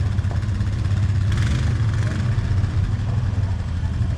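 ATV (quad bike) engine running steadily as a low drone, with a brief hiss about a second and a half in.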